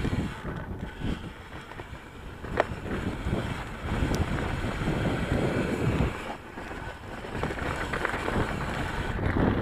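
Wind rushing over an action camera's microphone while an Ibis Mojo HD3 mountain bike rolls down a dirt singletrack, with an uneven rumble and rattle from the tyres and bike over the trail. There is a sharp click about two and a half seconds in.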